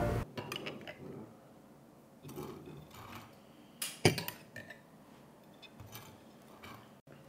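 Light scattered clinks and taps of cutlery on dishes and a glass jar at a table, with one sharper knock about four seconds in.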